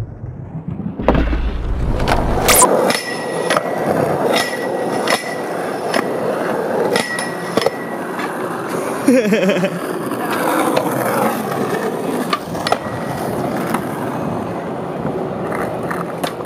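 Skateboard wheels rolling on pavement, with repeated sharp clacks of the board popping and landing.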